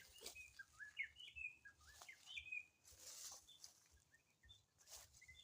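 Faint birdsong: a run of short, high chirping whistles, thickest in the first few seconds and thinning out toward the end, with a few soft clicks.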